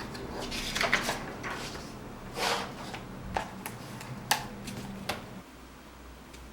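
Household clatter of dishes and utensils being handled: scattered clinks, knocks and short scrapes. A low steady hum runs underneath and stops about five seconds in.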